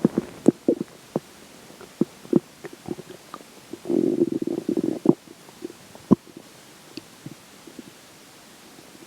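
Human stomach gurgling as a meal digests. It starts with a run of short, sharp pops and squelches, then about four seconds in comes a longer bubbling rumble lasting about a second. After that it thins to scattered pops and goes quiet near the end.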